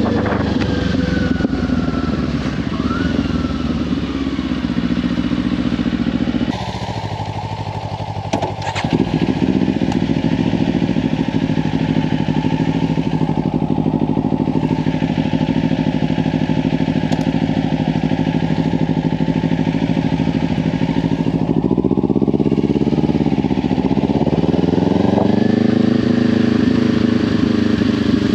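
Kawasaki Ninja 500's parallel-twin engine through a LeoVince slip-on exhaust, running at a steady cruise with heavy wind noise on the microphone. About six seconds in the engine note drops off and comes back about three seconds later, and a little past twenty seconds the pitch dips and then climbs again.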